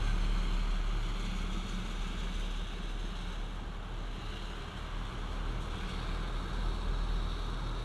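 Strong wind buffeting the microphone during a snowstorm: a steady low rumble with a hiss over it.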